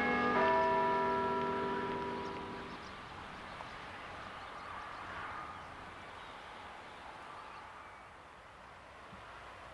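A bell struck about once a second, several ringing tones sounding together and dying away about three seconds in. After that only a faint open-air hiss remains.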